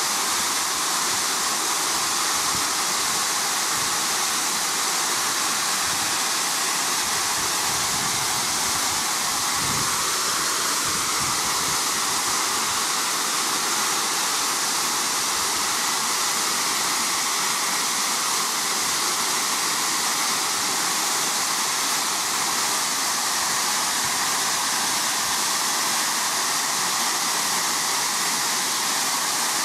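Steam locomotive No. 1638, a GWR 1600 class pannier tank, blowing off: its safety valves have lifted and vent steam in a steady hiss, the sign that the boiler has reached full working pressure.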